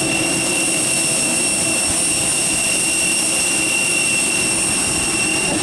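Steady jet turbine whine with a hiss and several high-pitched tones, from a parked Airbus A320-family airliner at the stand.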